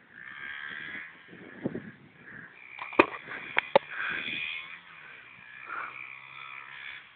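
Faint, distant motorbike engine running steadily in the second half, with a few sharp clicks about three seconds in.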